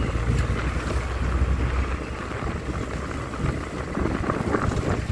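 Wind buffeting the microphone from a moving vehicle's open window, over a steady low rumble of the vehicle on the road.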